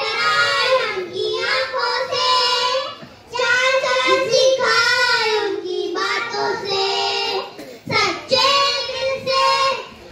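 A group of young children singing together in unison, with long held notes and short breaks between phrases about three and eight seconds in.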